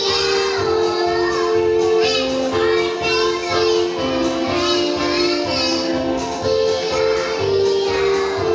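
Young children singing a song together over accompanying music, with clear held melody notes.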